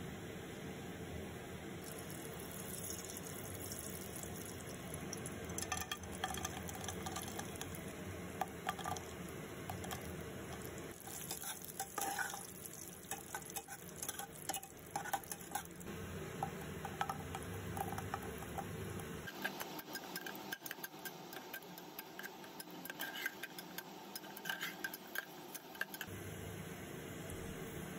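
A spoon stirring and scraping in a cooking pan, with irregular clinks of metal against the pan over a steady hiss.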